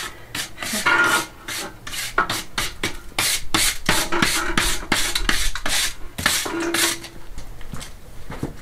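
Hand scraping with a trowel and wire brush: quick, repeated rasping strokes, several a second, cleaning old caked-on muck away so lime will bond. The strokes thin out near the end.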